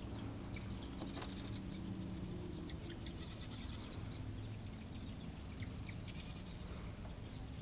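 Birds calling in short, rapid, high trills, three times, over a low steady hum.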